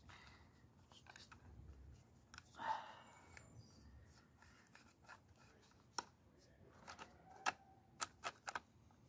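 Gloved fingers rubbing cream over a plastic blister bubble, with faint handling noise. There is a short rustle about a quarter of the way in, and a series of sharp little clicks in the second half as the plastic is pressed and handled.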